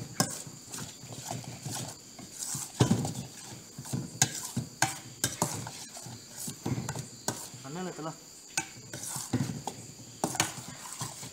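A metal spoon stirs and scrapes food in a steel pan on a gas stove, with irregular clinks and knocks of metal on metal. A steady high tone runs underneath.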